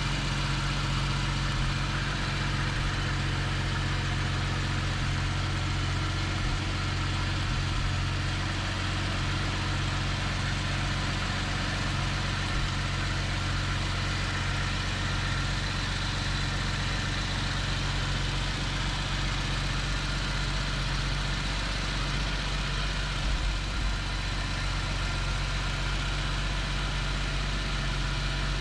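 Jaguar XJS V12 engine idling steadily after its overhaul.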